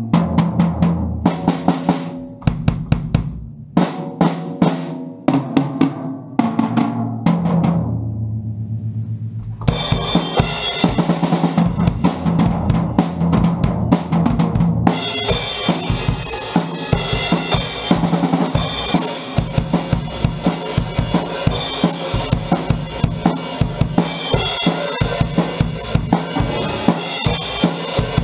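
A Pearl Export acoustic drum kit being played. It opens with broken-up fills and rolls across the toms and snare, then about ten seconds in settles into a steady beat with cymbals, and the cymbals wash louder from about fifteen seconds in.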